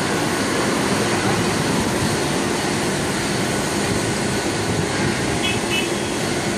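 Steady mechanical rumble and noise of a large shipyard gantry crane working as it lowers a hull block into a drydock, with two short high beeps near the end.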